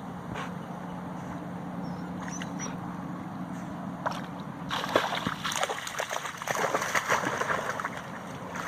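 Water splashing and sloshing, starting suddenly about halfway through and going on in quick irregular splashes, over a steady low hum.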